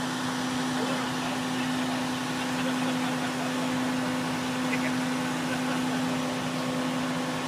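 Frac truck's heavy diesel engine running at a steady speed: an unchanging drone with a constant hum over an even rushing noise.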